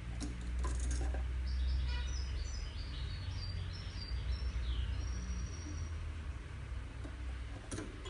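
European goldfinch singing a run of quick twittering notes, with a falling glide and a longer held note near the end of the phrase. A few light clicks come at the start and once more near the end, over a steady low hum.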